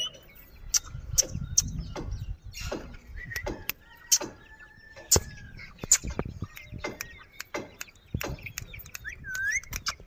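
Pet parakeets making scattered sharp clicks and a few faint short chirps, with one short whistled call that rises and falls near the end.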